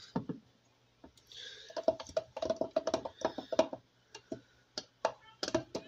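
Metal spoon scraping and clicking against the inside of a plastic blender cup while scooping out blended pepper mash. A quick run of clicks about two seconds in, then scattered taps.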